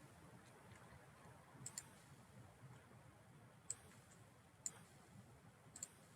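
Faint computer mouse clicks over quiet room tone: a double click about one and a half seconds in, single clicks near four and five seconds, and another double click near the end.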